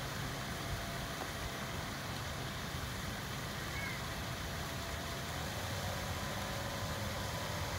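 Steady low outdoor rumble and hiss, with a faint short high chirp about four seconds in.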